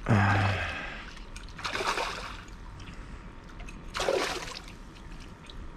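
Hooked smallmouth bass thrashing and splashing at the water's surface on the line, in short bursts about two seconds in and again about four seconds in.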